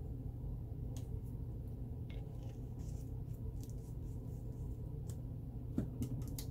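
Steady low electrical-type hum, with scattered faint clicks and light taps of small objects being handled, the sharpest near the end.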